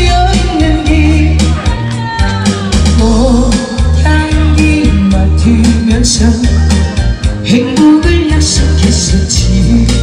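Loud amplified music through stage loudspeakers: a steady, heavy bass beat under a wavering melody line.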